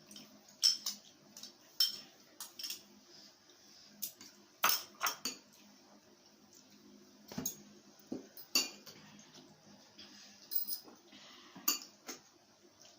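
Cutlery clinking and scraping on plates while people eat: irregular sharp clinks and taps, about a dozen, scattered through a quiet room.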